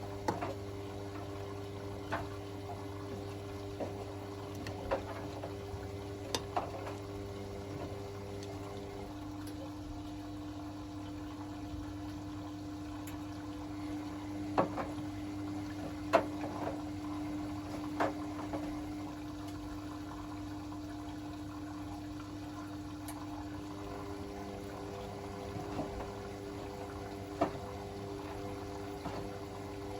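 Hotpoint WML540 washing machine taking in water early in a fast wash, with a steady hum and scattered light knocks from the drum.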